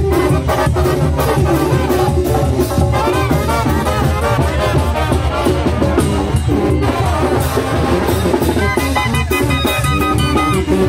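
Oaxacan brass band (banda de viento) playing upbeat festive music, with drums keeping a steady beat. High held wind notes come in near the end.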